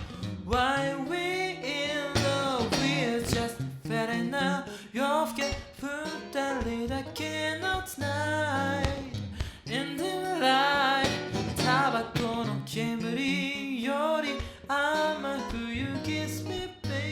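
A voice singing over acoustic guitar accompaniment: a live vocal and guitar duo.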